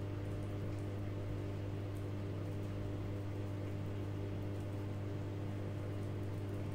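Steady low hum with a faint even hiss: unchanging background room tone.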